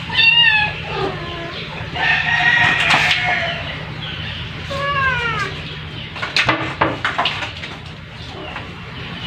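Several animal calls, each with a falling pitch, the longest about a second, over a steady low hum. A few sharp knocks come about six to seven seconds in.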